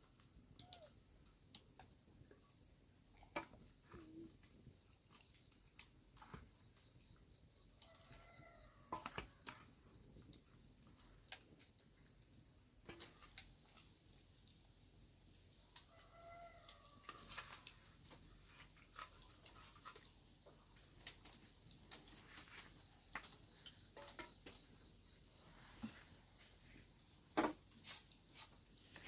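Insects, crickets, chirping: a steady high trill with a second chirp pulsing about once a second, with a few faint knocks and clicks over it.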